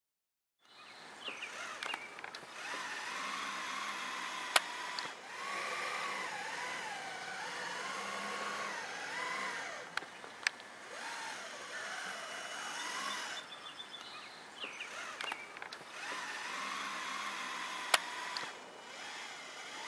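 Multirotor camera drone's electric motors and propellers whining, the pitch wavering up and down as it holds and shifts position. A few sharp clicks cut through, two of them loud.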